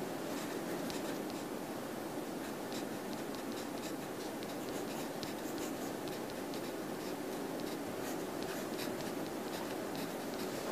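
Pencil writing on paper: many short, quick scratching strokes over a steady background hiss.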